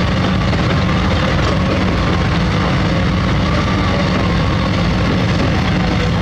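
Heavy diesel engine of construction machinery running steadily, a deep unchanging engine note.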